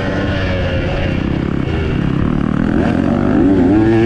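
KTM 125 single-cylinder two-stroke dirt bike engine running while riding, its pitch rising as the revs climb from about three seconds in.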